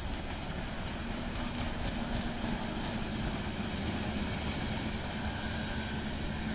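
Motorboat engine running steadily, with a low, even hum that firms up about a second in over a broad rushing noise.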